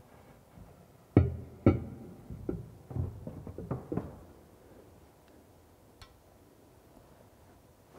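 Ceramic wash basin knocking against a wall panel as it is held and shifted: two sharp knocks with a short ring a little over a second in, then a run of lighter knocks and clatter that dies away about four seconds in.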